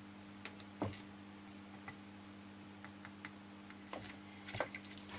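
Faint scattered clicks and small crackles from a soldering iron and solder wire working relay joints on a circuit board, with a steady low hum underneath. The sharpest click comes about a second in, and a quick cluster of clicks follows near the end.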